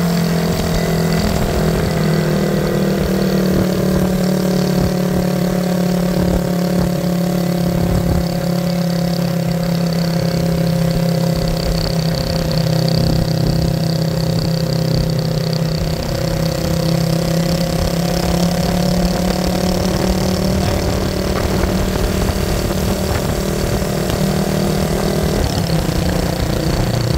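A motor vehicle engine running at a steady speed, its pitch holding almost constant with a slight dip near the end, over a rough low rumble.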